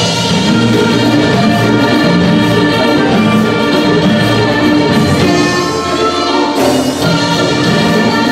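Loud Mexican regional dance music with horns playing over a steady band, no speech.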